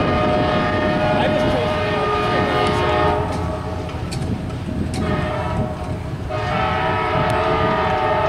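Train running past with its locomotive's multi-chime air horn sounding two long blasts: one for about three seconds, then after a pause a second that starts about six seconds in and is still going at the end. The rumble of the rolling train runs under the horn.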